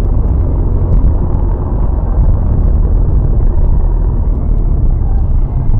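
Steady low rumble of a car on the move: engine and road noise picked up inside the vehicle, with a few faint clicks.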